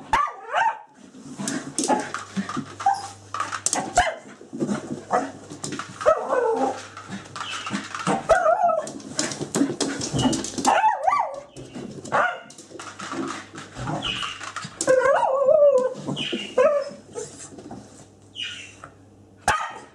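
Scottish terrier whining and yapping, in many short cries that bend up and down in pitch, with sharp clicks and knocks among them.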